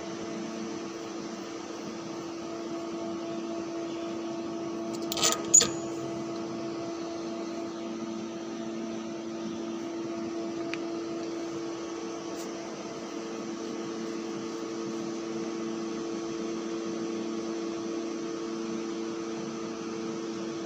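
Steady electrical-machinery hum of an overhead crane and steel-mill plant heard from inside the crane's control cab, several steady tones at once. About five seconds in, two sharp metallic knocks come in quick succession.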